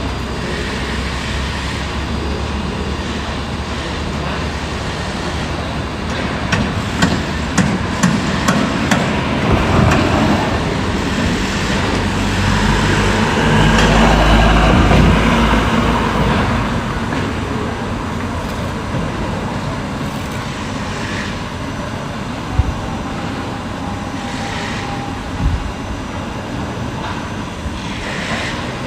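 Heavy machinery running steadily, with a quick run of sharp knocks about seven to nine seconds in and a louder, deeper swell around the middle.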